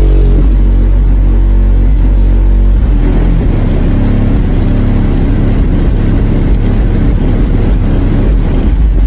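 Bass-heavy music played very loud through a semi truck cab's aftermarket subwoofer system, the low bass dominant and booming steadily.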